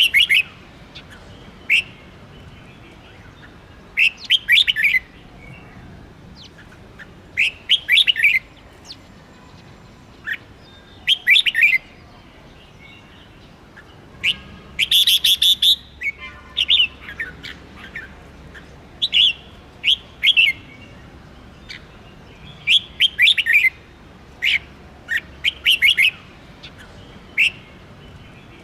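Red-whiskered bulbul singing short whistled phrases every two to four seconds, with a longer, louder phrase about halfway through followed by a quick rattling run of notes.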